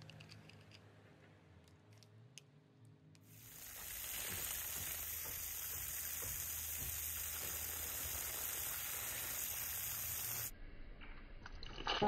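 Water from a small pond fountain, driven by a water pump, splashing with a steady hiss. It comes in about three seconds in and cuts off suddenly near the end, leaving a quieter trickle.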